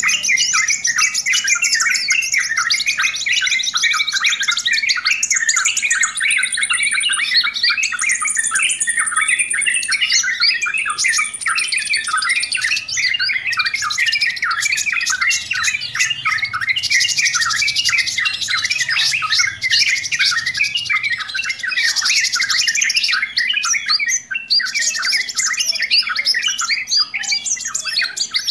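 Yellow-vented bulbuls chattering noisily, a dense unbroken run of short calls, with three thin, high, held whistles about a quarter of the way through.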